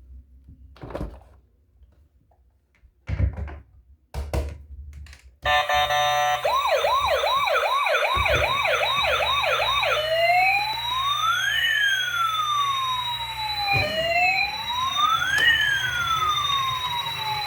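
A few knocks, then about five and a half seconds in a toy emergency vehicle's electronic siren switches on: a fast yelp of quick up-and-down sweeps for about four seconds, then a slower wail rising and falling.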